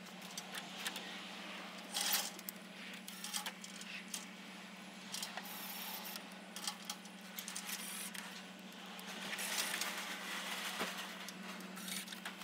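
Light metallic clicks, clinks and scrapes of screws and a cordless drill-driver being handled against the metal front grille of a Land Rover Defender as it is screwed back on, with a louder stretch near the end, over a steady low hum.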